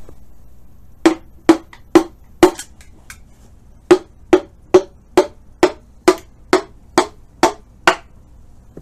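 Small ball-peen hammer tapping on the freshly torqued connecting-rod caps and bolts of an International Harvester V8, to settle them so they take a little more torque. Sharp ringing metal taps, about two a second: four, a short pause, then ten more.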